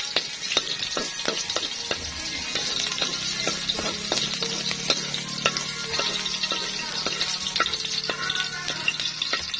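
Sliced onion and garlic sizzling in hot oil in a wok while a spatula stirs them, scraping and clicking against the pan over and over.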